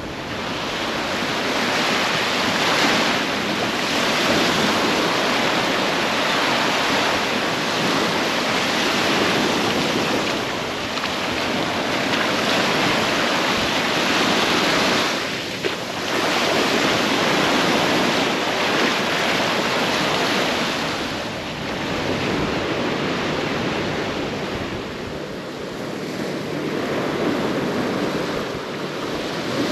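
Sea surf washing in and out, a steady rushing noise that swells and eases every several seconds, with wind on the microphone.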